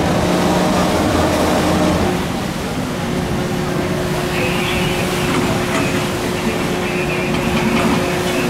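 Steady drone of marine engines and ship's machinery over the rushing wash of the sea, its hum shifting to a different steady pitch about two seconds in.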